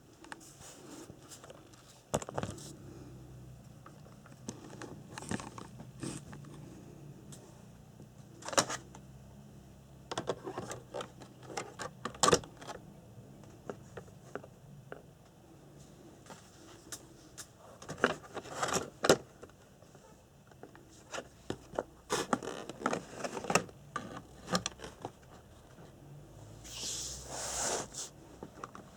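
Scattered clicks, taps and scrapes of items being handled by hand, with a brief rustle near the end.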